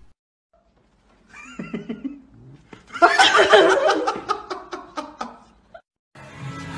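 People laughing, starting softly and breaking into loud, hearty laughter about three seconds in, with a rapid run of laughing pulses that stops suddenly before the end. Music starts just before the end.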